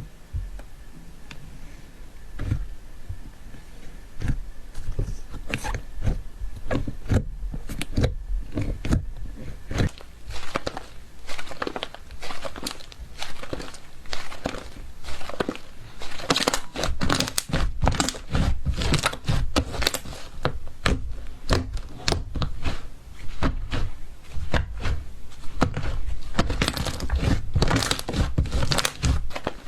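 Slime being pressed and squeezed by hand, making irregular crackling and popping clicks that grow denser about halfway through.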